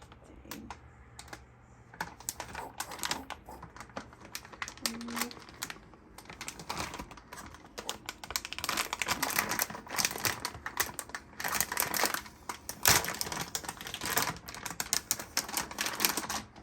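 Typing on a computer keyboard: rapid key clicks, scattered at first and coming thick and fast from about eight seconds in.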